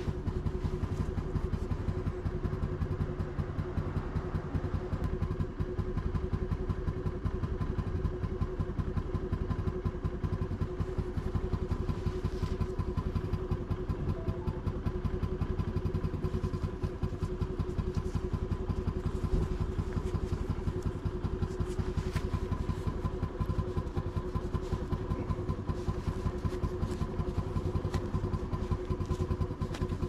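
Honda Navi scooter's small single-cylinder four-stroke engine running at a steady speed, heard from on the scooter as it rides.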